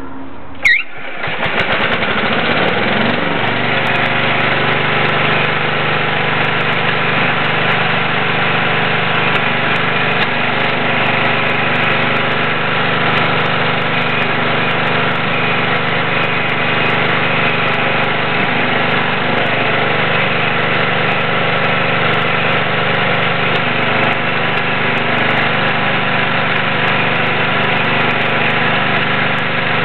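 Allis-Chalmers garden tractor engine comes up to speed about a second in, then runs steadily.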